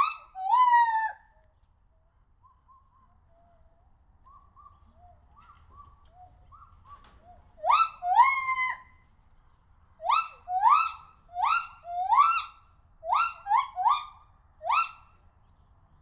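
A monkey giving short, rising, whistle-like calls in quick series, about two a second. Loud bouts come at the start, around the middle and through most of the second half, with softer, scattered calls between them.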